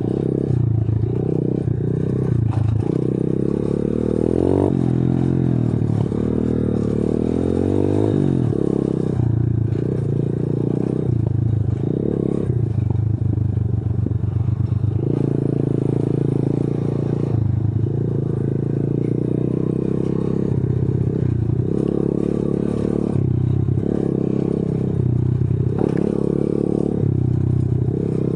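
125 cc pitbike's single-cylinder four-stroke engine running close up under the rider on a rough dirt trail. The throttle is opened and shut again and again, so the engine note rises and falls, with a long rising and falling rev about four to eight seconds in.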